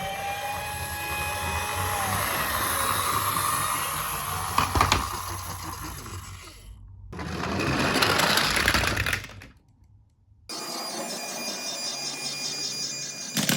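A toy car's small motor whirring in several short stretches broken by abrupt cuts, with sharp knocks about five seconds in and again near the end.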